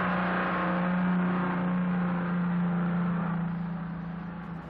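The diesel engine of a motor scraper running as a steady, even drone under working load. It eases off a little in the last second or so.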